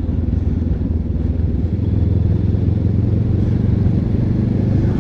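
Benelli TRK 702 X motorcycle's parallel-twin engine running at a steady pace while being ridden.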